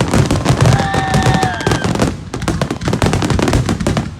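Fireworks going off in a dense, rapid crackle of pops and bangs. About a second in, a held whistle-like tone sounds over them for about a second.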